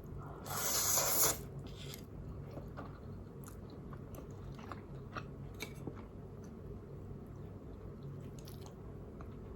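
Close-miked eating of spicy instant noodles: chewing with small scattered crunches and clicks. A loud, brief rush of noise about half a second in is the loudest moment.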